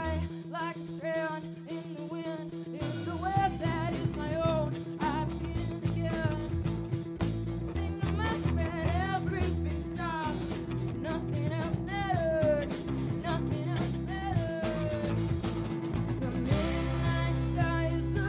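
Live rock band playing: a woman sings the lead over acoustic and electric guitars, bass and drums. The low bass end is missing for the first few seconds and comes in about three seconds in.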